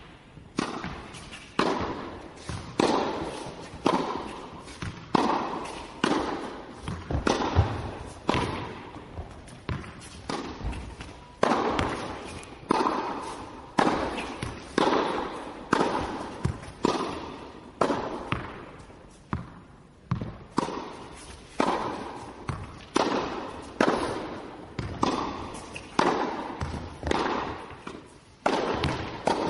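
Tennis balls struck by rackets in a steady rally, about one hit a second, each hit followed by a short echo.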